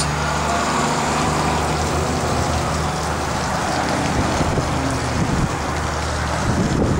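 Pontoon boat's outboard motor idling steadily, with a low even hum under a broad steady hiss.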